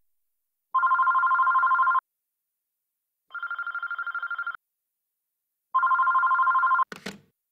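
Telephone ringing three times, each ring a fast-warbling electronic two-tone trill a little over a second long, the second one fainter. The ringing stops with a click near the end.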